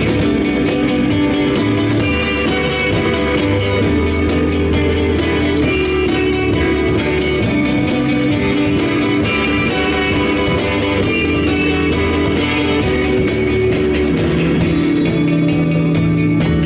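Live instrumental rock band playing: electric guitar and keyboards over a drum kit keeping a steady beat.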